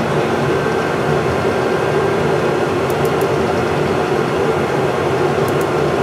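Steady hum and whir of a Monarch 10EE metal lathe's drive left running while the spindle is stopped, with a faint steady tone in it. A few faint high clicks come about halfway through and again near the end.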